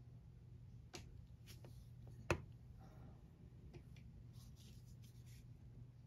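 Light clicks and taps of a clear silicone nail stamper and plastic stamping tools being handled, the sharpest one a little over two seconds in, over a faint steady low hum.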